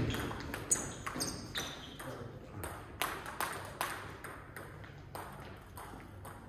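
Irregular sharp clicks and knocks, several with a short high ringing, about a dozen over several seconds.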